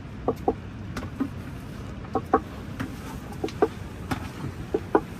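Chickens clucking: short calls, mostly in quick pairs, repeating every second or so.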